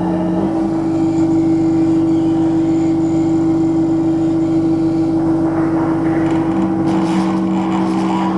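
Loud, steady electronic drone from a live electronics performance: one strong held tone, with a lower held tone under it that comes up stronger again about two-thirds of the way through, over a dense engine-like hum.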